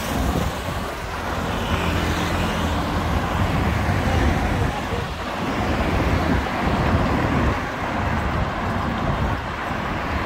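Road traffic going by: vehicle engines and tyre noise, steady throughout, with a low rumble of wind on the microphone.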